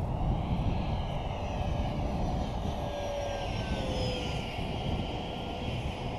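Electric ducted fan of an FMS 70mm F-16 RC jet (10-blade fan on a 4S battery) whining as the jet flies past, its pitch rising in the first second and then falling slowly as it moves away.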